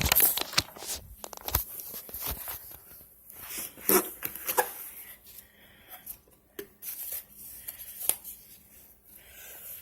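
Box packaging being opened and handled by hand: irregular tearing, crinkling and knocks, loudest right at the start.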